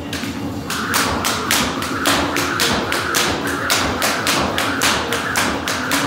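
Speed jump rope slapping the floor in a fast, even rhythm, about four to five slaps a second, during double-unders. It starts just under a second in.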